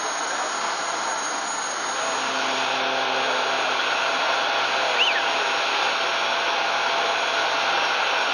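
Steady rushing hiss with a thin high whine from the parked C-5B Galaxy's auxiliary power equipment running on the ramp, with a low hum joining about two seconds in and a brief squeak about five seconds in.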